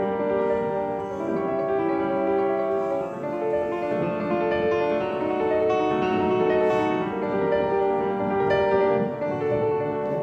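Instrumental background music led by piano, with held notes that change every second or so.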